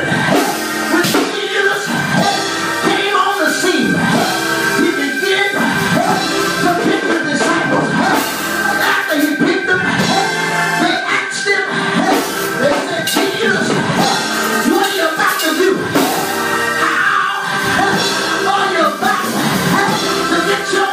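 A man singing gospel into a handheld microphone, amplified through the church's loudspeaker, over music with a steady held note beneath the voice.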